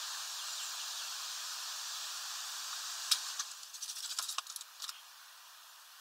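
Steady outdoor hiss, then a quick run of sharp clicks and taps a little past halfway through, after which the background drops quieter.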